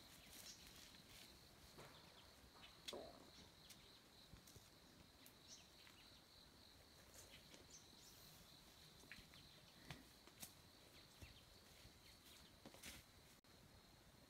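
Near silence: faint outdoor ambience with a steady high-pitched hum and scattered light clicks and rustles.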